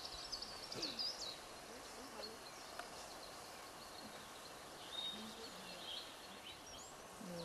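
Small birds chirping and twittering over steady background noise, with a quick run of chirps in the first second and scattered calls after.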